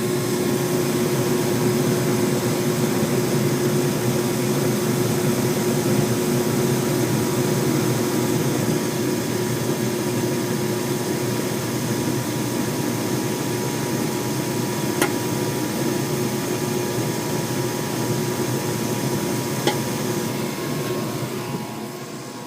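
Gas furnace running just after ignition, its burners lit and the draft inducer fan on, giving a steady rushing noise with a low hum. Two faint clicks come about 15 and 20 seconds in, and the sound grows quieter near the end.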